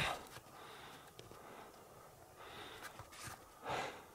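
A person breathing hard, out of breath from climbing: a few heavy, noisy exhales, the strongest almost four seconds in.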